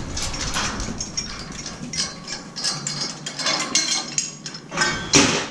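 Metal scaffold tubes, couplers and boards clinking and knocking as scaffolding is handled: many irregular sharp clicks and clanks, with a louder clatter near the end.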